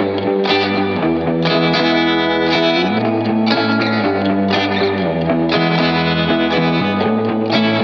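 Background music led by distorted electric guitar, its chords changing about every second.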